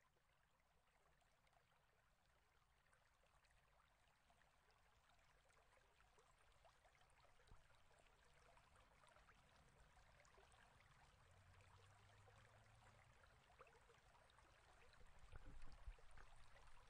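Near silence: a faint steady hiss, with a brief low rumble near the end.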